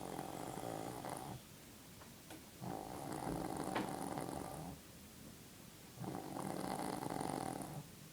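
A woman snoring in her sleep: three long snores, each about two seconds long and spaced roughly three seconds apart.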